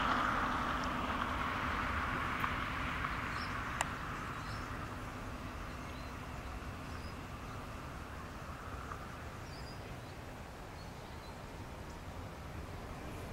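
Road noise of a passing car fading away, leaving a low steady rumble of distant jet engines from an Airbus A380 on its takeoff roll. A few faint bird chirps and two sharp clicks, about two and a half and four seconds in.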